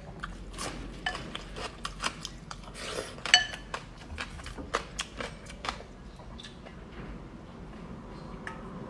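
Eating utensils clicking and scraping against a dish, with many small sharp clicks and one louder ringing clink about three seconds in.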